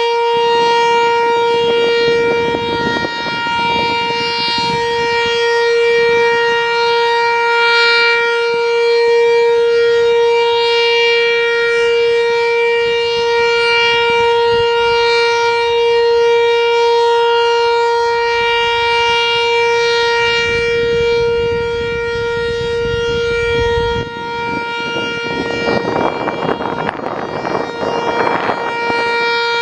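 Sentry 3V8-H outdoor warning siren sounding the alert signal: one steady, unbroken tone, its loudness swelling and fading slowly as it sounds. Near the end a rough rushing noise joins it.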